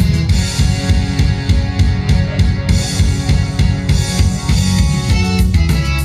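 Upbeat backing-track music with a steady drum-kit beat, bass drum and snare, and bass, playing loudly with no vocal over it.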